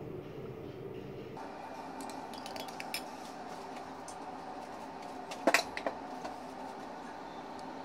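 Metal spoon clinking against a ceramic mug: a few light taps, then two or three sharper, ringing clinks about five and a half seconds in, over a steady low room hum.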